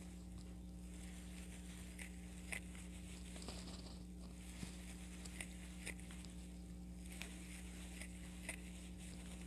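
Faint, irregular small clicks and rustles of a crochet hook working yarn stitch by stitch, over a steady low hum.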